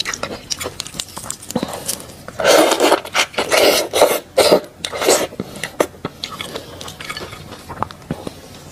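Close-miked eating sounds from raw red shrimp: a run of loud, wet slurps as the shrimp heads are sucked, in the middle, then softer crackling and clicking as the shells are peeled apart with the fingers.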